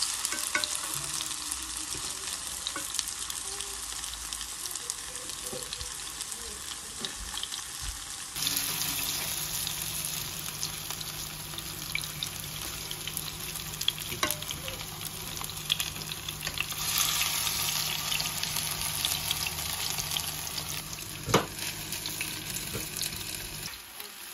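Grated-pumpkin fritters frying in oil in a frying pan: a steady sizzle with fine crackling, and a few sharp clicks of a fork against the pan, the loudest near the end.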